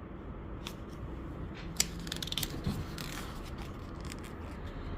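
Faint scattered clicks and scrapes of handling noise over a low steady hum, likely from the book being handled during a pause in the reading.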